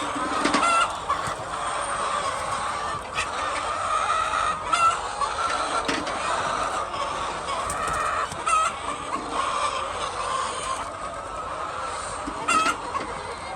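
A large flock of hens clucking together in a steady din, with a few individual hens giving short, louder calls above it every few seconds.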